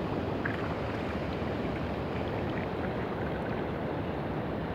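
Steady rushing water at a river spillway, an even noise without breaks, with some wind on the microphone.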